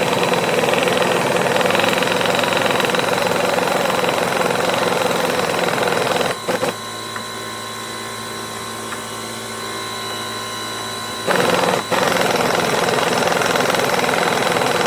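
Pneumatic impact wrench (air gun) driving lag screws into hard oak, rattling in two long runs of about six and three and a half seconds, with a quieter steady hum between them.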